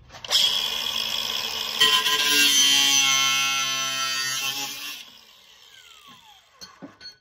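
Milwaukee cordless angle grinder with a cut-off wheel, spinning up and then cutting into a steel exhaust pipe for about three seconds. It is switched off about five seconds in and winds down with a falling whine.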